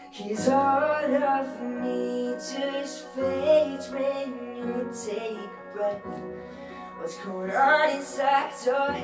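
A young man singing with keyboard accompaniment; the voice comes in just after the start over held keyboard chords.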